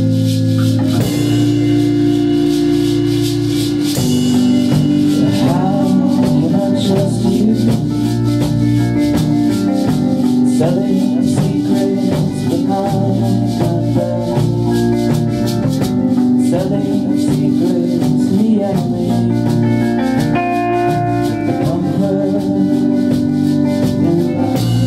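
Live rock band playing a song together: drum kit keeping a steady beat with busy hi-hat, and electric guitars. A man sings lead into the microphone in places.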